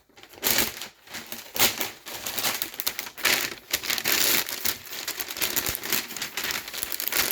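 Packing paper being handled and crumpled while a plant is unwrapped: a dense, irregular crackling and rustling with a few short pauses.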